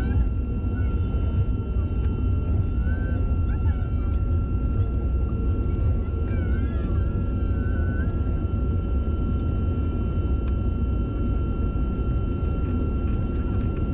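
Jet airliner cabin noise while taxiing: a steady low rumble from the engines and rolling wheels, with a constant high whine over it. A few faint, short, gliding squeaks sound through it.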